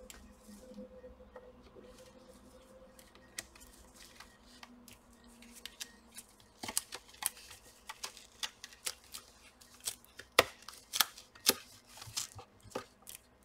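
Rubber sealing strip being peeled up from a soundbar's housing: scattered small clicks and crackles, coming thicker and sharper in the second half.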